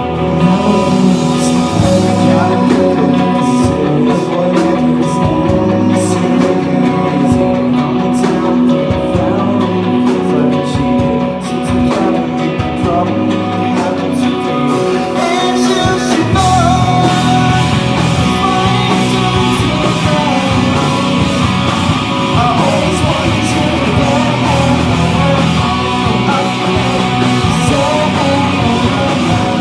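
Live pop-punk band playing: electric guitars, drums and a singer.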